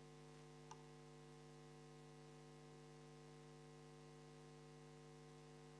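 Near silence with a steady electrical mains hum of several constant tones, and one faint click a little under a second in.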